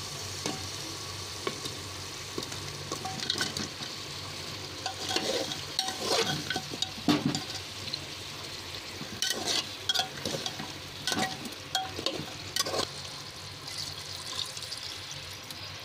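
A steel ladle stirs and scrapes through simmering gravy in an aluminium pressure cooker, clinking against the pot many times, over a steady low hiss of the cooking. Near the end, water is poured into the pot.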